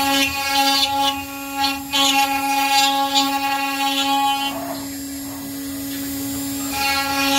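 Electric router spindle motor with a straight bit cutting a mortise into a wooden table leg. A steady high whine runs throughout; the louder, rougher sound of the bit chewing through the wood lasts about four and a half seconds, eases to the spindle alone, then comes back near the end.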